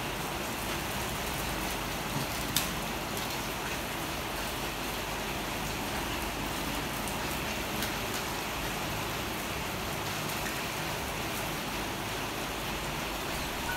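A steady, even hiss like rain, with a sharp click about two and a half seconds in and a fainter click a few seconds later.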